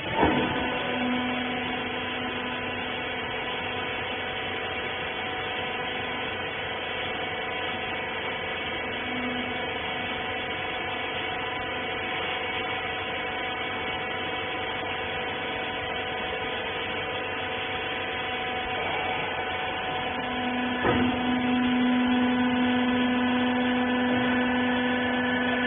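Rag baler's electric motor running with a steady hum. A click at the start and another about 21 s in, after which the hum runs louder.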